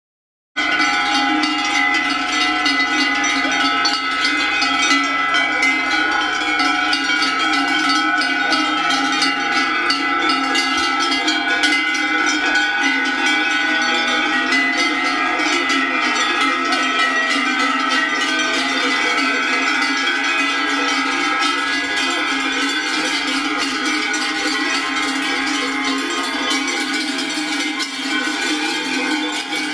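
Many large cowbells clanging and ringing together as a herd of cows walks along, a dense, continuous jangle of overlapping tones that starts suddenly about half a second in. The bells are hung on the cows for the spring drive up to alpine summer pasture.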